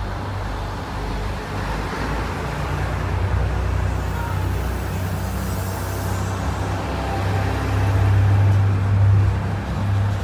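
Two-car KiHa 220 series diesel railcar train pulling out of the station past the platform, its diesel engines running under load with a low drone. The drone grows loudest near the end as the last car goes by.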